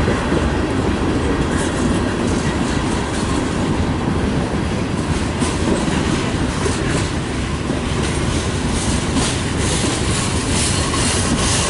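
Freight train cars rolling past: a steady rumble of steel wheels on rail, with irregular clicks as the wheels cross rail joints.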